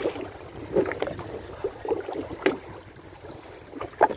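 Water splashing and lapping at the water's edge, with a few irregular knocks.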